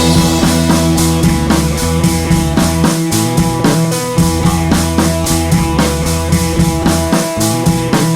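Rock backing music with a steady drum-kit beat, bass and guitar.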